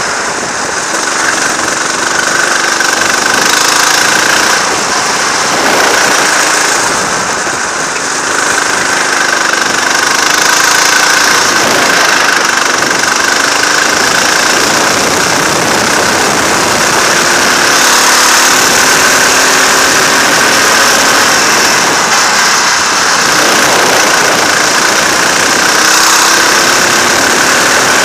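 Go-kart engine at racing revs, recorded onboard. The revs drop near the start and again about eight seconds in as the kart slows for corners, then climb in rising sweeps as it accelerates out.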